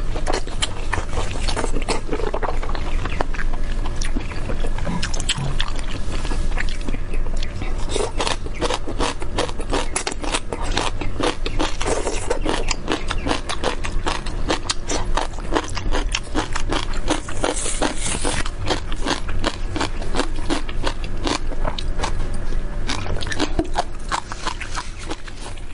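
Close-miked eating sounds: chewing a piece of braised meat, with a dense, steady stream of mouth clicks and smacks, and rustling of lettuce leaves as they are handled.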